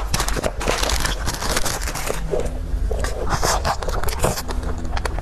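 Close-miked eating sounds: rapid, irregular crunching and scraping of food being bitten and chewed, over a steady low hum.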